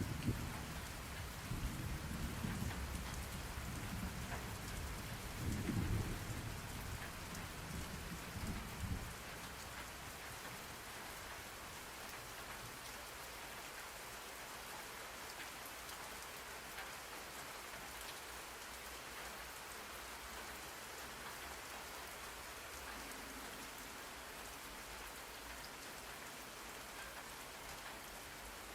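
Steady heavy rain, with a deep rumble of thunder that rolls and swells over the first nine seconds or so and then dies away, leaving just the rain.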